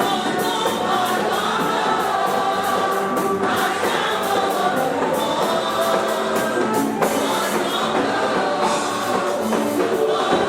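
Choir singing gospel music over a steady percussion beat.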